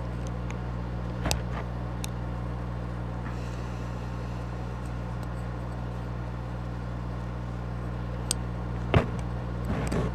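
Steady low hum with a few small clicks and taps as the HO-scale model locomotive is handled on the workbench, the sharpest about a second in and near the end.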